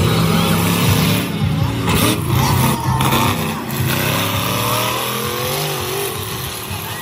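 Monster truck engine running loud, its pitch rising and falling as it revs while driving over a row of junk cars.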